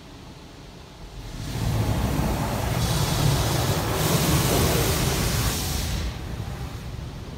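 Water jets of an automatic car wash spraying over the car, heard from inside the cabin. A rushing hiss over a low rumble builds about a second in and eases off near the end.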